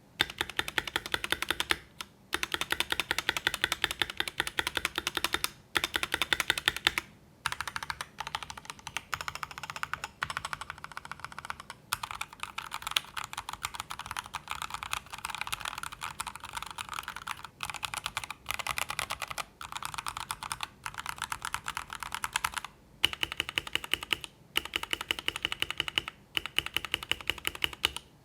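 Rapid typing on AKKO 3098-series mechanical keyboards fitted with TTC switches, a dense run of key clicks in stretches of a few seconds with brief pauses between them.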